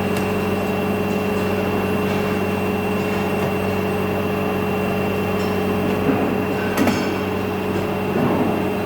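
Steady hum of running industrial machinery, with a few short metallic clinks near the end.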